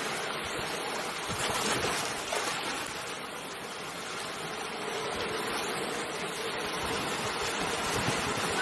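Ocean waves rushing and washing on a shore, a steady surf that swells a little about one and a half seconds in.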